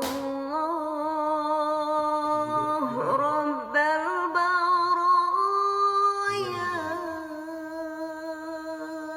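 A single voice chanting in long, drawn-out, wavering notes, sliding between held pitches and growing quieter toward the end.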